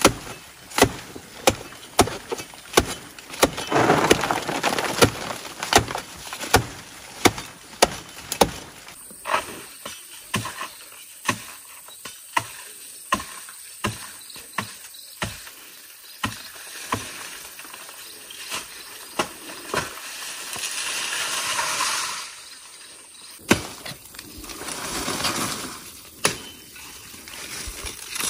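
A long series of sharp knocks, about two a second at first and then slower and more irregular, with swells of rustling noise between them.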